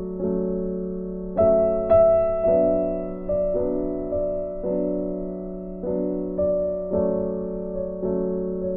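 Slow, gentle background piano music: soft notes and chords struck about once a second, each ringing and fading away.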